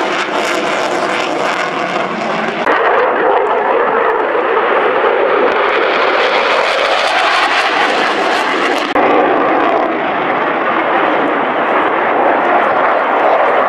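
Eurofighter Typhoon's twin jet engines, a loud steady rush of jet noise as the fighter flies its display. It steps up in loudness about three seconds in, grows brighter and higher around the middle, and shifts abruptly about nine seconds in.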